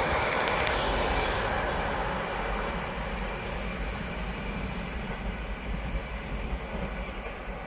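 Locomotive-hauled engineers' train moving away along the track. Its wheel and engine noise fades steadily, with a low, steady engine hum underneath.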